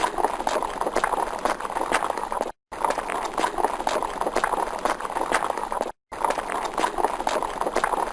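Horse hooves clip-clopping in a quick, busy rhythm. The effect is a short loop that cuts to dead silence for a moment twice, about two and a half seconds in and again about six seconds in.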